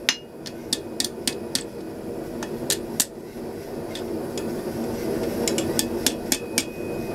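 Blacksmith's hand hammer striking red-hot steel on an anvil in light, quick blows, about three a second, with a pause of about two seconds midway; the tail of a hand-forged flint striker is being curled over. A steady low hum runs underneath.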